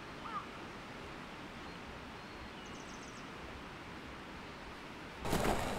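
Steady outdoor ambient hiss with two short bird chirps at the start and faint high bird twitters about halfway through. Near the end it turns abruptly louder, with scattered clicks and clatter.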